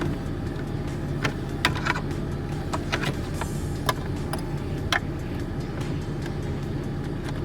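Car engine idling with a steady low hum, while scattered light clicks and knocks come from plastic dash parts being handled and the cigarette lighter being pulled from its socket.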